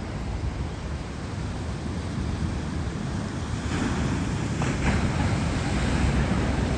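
Steady rushing noise of wind buffeting the microphone over the wash of surf, growing fuller about halfway through.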